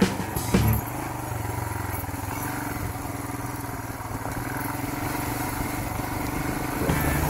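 Royal Enfield Himalayan's 411 cc single-cylinder engine running steadily at low speed as the motorcycle rolls slowly through a mud puddle, with a couple of sharp knocks in the first second.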